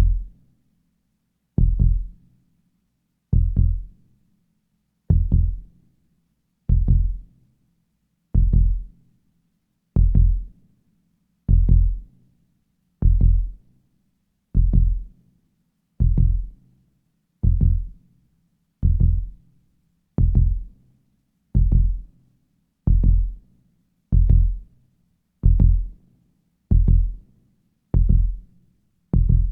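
Heartbeat sound effect: single deep, low thumps, each dying away quickly, with the pace gradually quickening from about one every 1.7 seconds to about one every 1.3 seconds.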